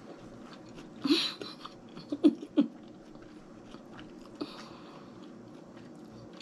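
Close-miked chewing of escargot: soft, wet mouth sounds, with a louder smack about a second in and a quick cluster of three more just after two seconds.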